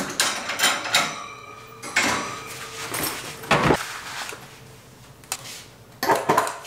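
Clattering and clanking of a wire-mesh storage locker and a marching snare drum carrier being handled: a string of metallic knocks and rattles, some with a short ring, the loudest a little after three and a half seconds in.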